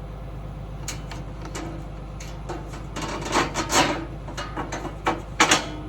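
Metal clicks, knocks and clatter as hydraulic hose couplers are handled and plugged into the tractor, the loudest clacks near the end. A steady low engine hum runs underneath.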